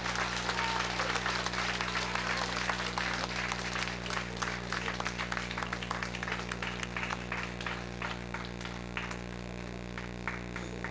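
Audience applauding. The clapping is dense at first and thins to a few scattered claps near the end, over a steady low electrical hum.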